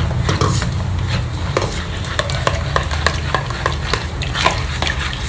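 A steel spoon stirring and pressing blended beetroot, carrot and tomato pulp in a plastic strainer to force the juice through. It comes as a run of quick, irregular wet scrapes and clicks over a low steady hum.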